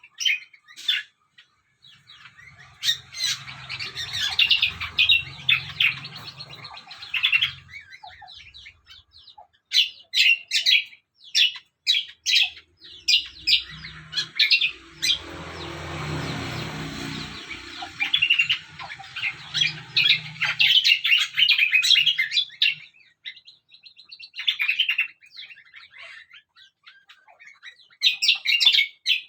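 Songbirds chirping in quick runs of short, sharp notes, with pauses between runs. Underneath, a low steady hum comes and goes twice.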